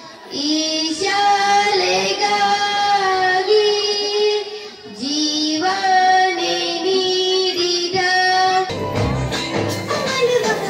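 A boy singing solo into a microphone, long held and wavering phrases with short breaks between them. Near the end it cuts abruptly to recorded dance music with a heavy bass beat.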